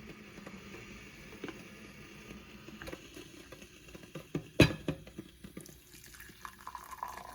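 Brewed coffee being poured into a cup, with light clinks and one sharp knock about halfway through.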